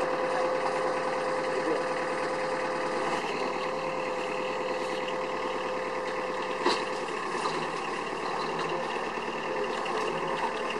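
Frumaco fruit-harvesting platform running, its engine and conveyor belts making a steady mechanical drone with a steady whine over it. There is a single sharp knock about seven seconds in.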